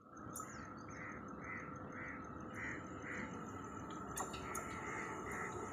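A bird calling over and over, short calls about two a second with a brief gap about four seconds in, over a low steady rumble.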